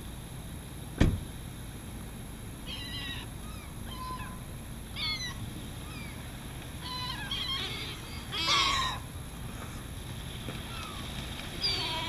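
Seagulls calling as they fly in: a run of short calls that fall in pitch, starting a few seconds in and bunching into a louder burst a little before the end. A single sharp click about a second in is the loudest sound.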